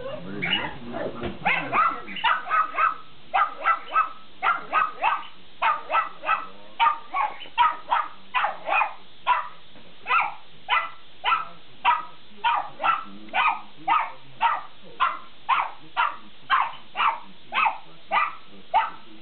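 A pug barking over and over at dogs on a television screen, in short sharp barks about two a second with hardly a break.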